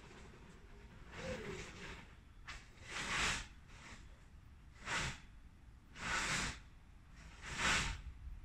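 A person breathing close to the microphone: about six short breaths in and out, roughly one every second and a half.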